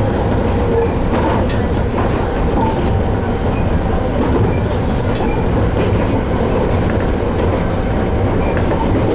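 Toyama Chiho Railway Tateyama Line train running along the track: a steady rumble with faint wheel clicks over the rails.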